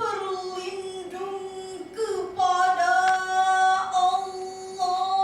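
Qur'an recitation (tilawah) in a high voice, chanted melodically. Each syllable is drawn out into long held notes with wavering ornaments. A new, louder phrase begins about two seconds in.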